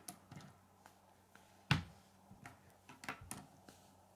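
Plastic K'nex pieces clicking and tapping as they are handled and snapped onto connectors: a few scattered sharp clicks, the loudest about a second and a half in and a small cluster around three seconds in.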